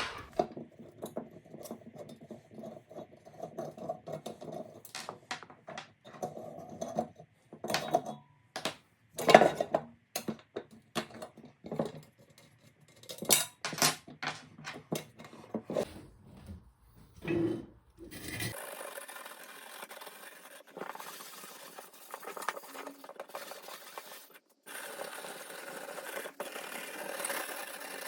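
Irregular metallic clicks, clinks and knocks as the handle is worked off a copper kettle, followed by a steady hiss-like noise for the last ten seconds or so, broken once briefly.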